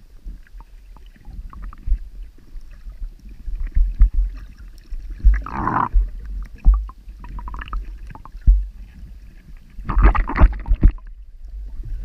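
Underwater sound through a GoPro's waterproof housing: low, muffled rumbling and thumping of water moving against the camera, with louder gurgling bursts about six seconds in and again near ten seconds.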